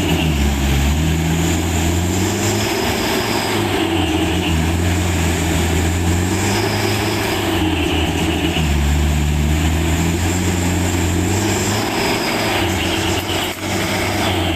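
Truck's diesel engine running under load, its pitch stepping up and down every few seconds as it labours over rough ground.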